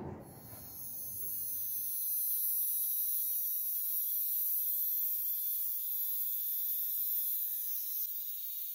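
Dremel rotary tool spinning a small thin disc against the edge of a metal clock front ring to sand it: a steady high-pitched whine that builds over the first two seconds and then holds.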